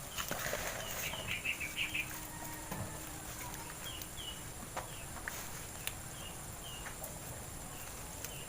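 A small bird chirping in short high calls: a quick run of chirps about a second in, then pairs of chirps now and then. Occasional light clicks and a faint low steady hum run underneath.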